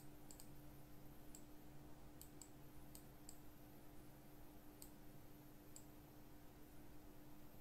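Faint computer mouse clicks, about ten scattered irregularly over several seconds, over a low steady hum.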